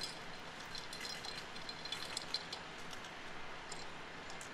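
Faint, scattered light clicks and clinks from a bull float's metal handle and bracket rattling as it is worked across the wet concrete slab.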